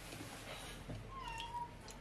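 A cat meowing once, a single drawn-out call about a second in.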